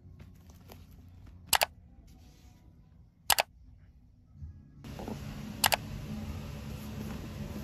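Three sharp camera-shutter clicks, each a quick double click, about two seconds apart. They sit over faint background hiss that grows louder about five seconds in.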